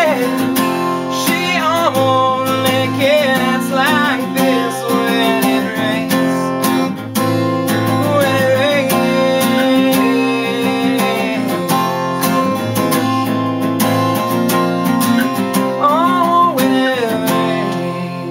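Acoustic guitar strummed steadily through an instrumental passage of a country-style song.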